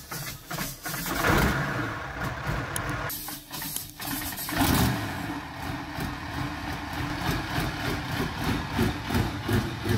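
Big tank diesel engine fitted to a Volvo PV544 running rough and uneven, with louder surges about a second in and again near the middle.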